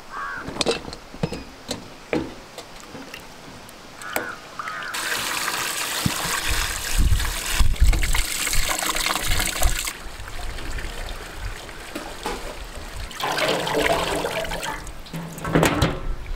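Water pouring and splashing over raw chicken pieces in a steel bowl as they are rinsed by hand, in two long stretches, with knocks and clatter of hands and food against the steel between them.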